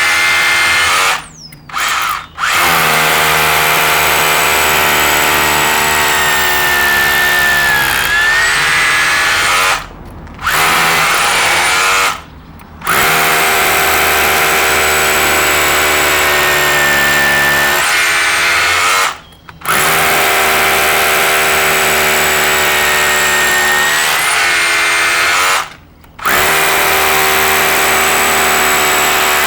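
Electric drill boring out the mortar joints around a brick (stitch drilling). It runs in long steady stretches and cuts out briefly about six times, two of them close together near the start, before starting up again.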